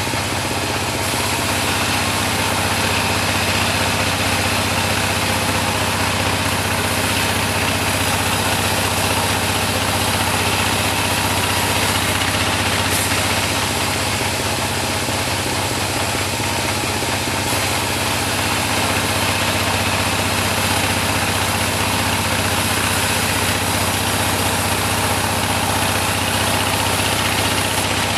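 Type-26 band sawmill running steadily, a continuous engine-like drone with saw noise over it and no breaks.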